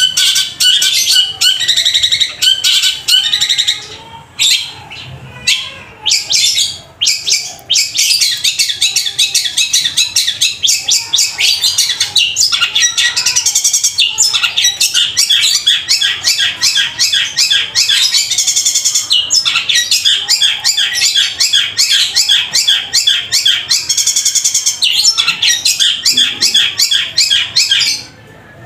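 Caged long-tailed shrike (cendet) singing loudly in imitation of tree sparrows' fighting calls: a rapid, almost unbroken run of harsh, high chirps, several a second. The run breaks up for a few seconds about four seconds in, then picks up again.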